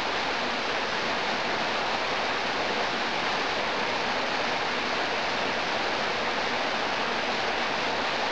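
Steady rush of water tumbling down a rocky creek, an even hiss that does not change.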